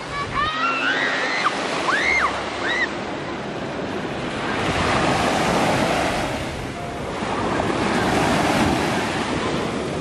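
Sea surf washing up onto a sandy shore, swelling twice as waves break, with wind buffeting the microphone. A few short high calls sound in the first three seconds.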